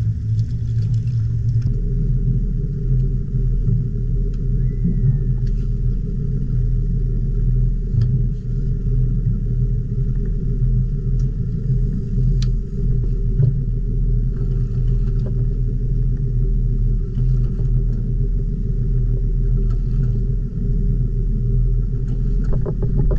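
Boat engine running steadily at idle, a constant low drone.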